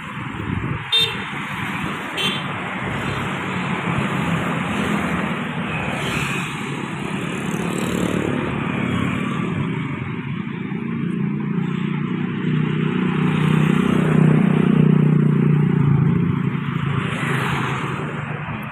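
Tour bus driving past in traffic: engine and road noise build to a peak about three quarters of the way through, then fade as it moves off. Two brief sharp sounds come near the start.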